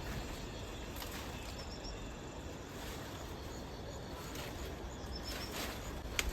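Outdoor garden ambience: a steady background hiss with short, faint high chirps from birds or insects twice, and a few light clicks or rustles.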